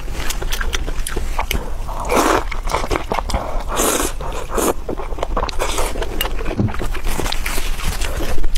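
Close-miked eating: a steady run of wet chewing clicks and lip smacks, with several short, noisy slurps about two, four and almost six seconds in as food is sucked off chopsticks.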